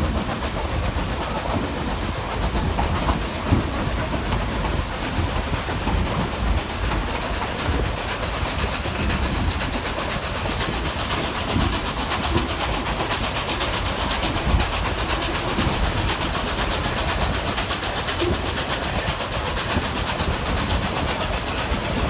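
Steady rumble and rattle of a narrow-gauge steam train's cars rolling along the track, heard from an open-sided car, with occasional clacks of the wheels over rail joints.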